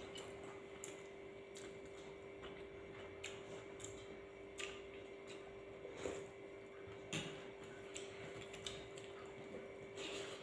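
Faint sounds of two people eating with their hands: chewing, lip smacks and soft squishes of fingers in rice, with scattered small clicks, over a steady hum.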